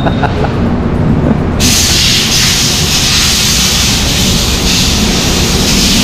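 Loud compressed-air hiss from a shop compressor's blow gun, cutting in suddenly about a second and a half in and then holding steady, as the motorcycle's brake caliper is blown clean during a brake pad change.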